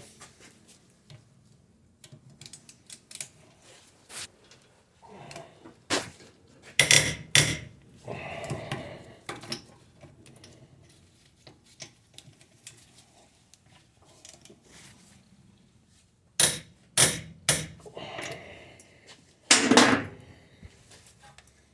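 Metal brake parts clinking, clicking and scraping as brake pad hardware clips and pads are handled and fitted onto a caliper bracket. The sharp clicks come in two clusters, with short scrapes between them.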